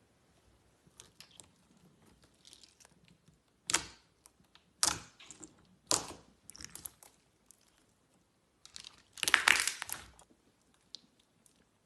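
Slime being squeezed and pressed by hand, giving crisp crackling and popping sounds. Three short, sharp crackles come about a second apart, then a longer, louder crackle about nine seconds in.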